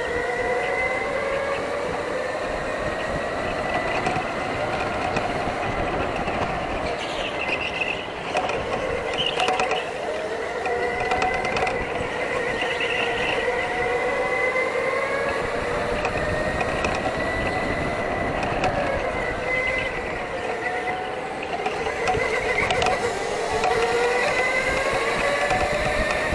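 Indoor racing go-karts' electric motors whining at speed, several tones gliding up and down as the karts accelerate and brake through the corners.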